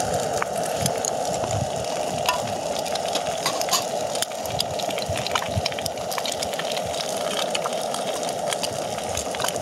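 Two eggs frying in a nonstick pan, sizzling over a steady hiss with scattered crackling pops throughout.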